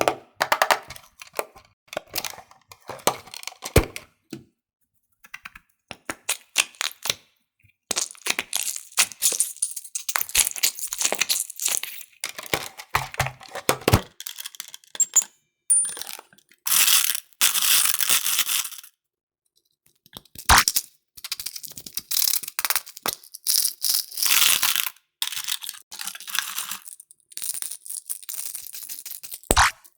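Small candies clattering into a container as they are poured and mixed, in quick clicks and longer rattling pours of a few seconds each.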